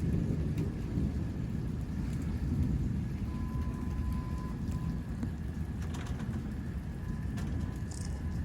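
Rain falling steadily during a thunderstorm, with a low rumble underneath and a few faint ticks of drops.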